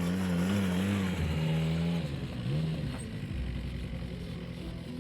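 ATV engine running under way, its pitch wavering up and down as the throttle changes, with a dip about two and a half seconds in.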